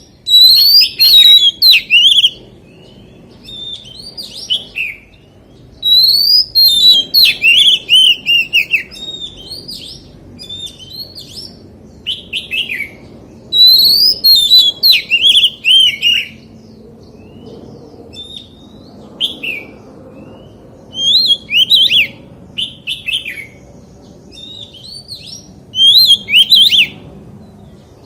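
Oriental magpie-robin singing: loud phrases of rapid, varied notes that slide up and down, delivered in bursts of one to three seconds with short pauses between.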